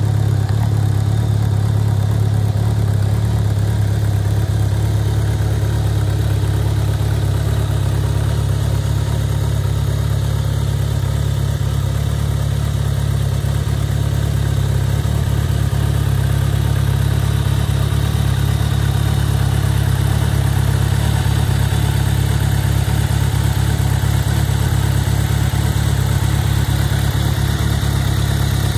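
Kawasaki ZRX1200 DAEG's inline-four engine idling steadily through an aftermarket PMC megaphone exhaust, an even low note with no revving.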